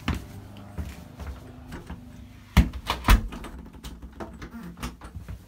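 A door being handled: a sharp click as it opens, then two loud knocks about halfway through, with smaller clicks and rattles between.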